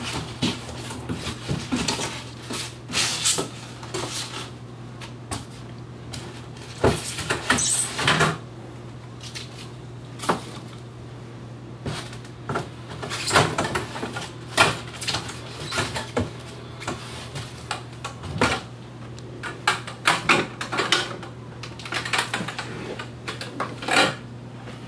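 A large cardboard shipping box being unpacked by hand: flaps pulled open and folded back, and paramotor parts lifted out and set down, giving irregular rustles, scrapes and knocks of cardboard and packing. A steady low hum runs underneath.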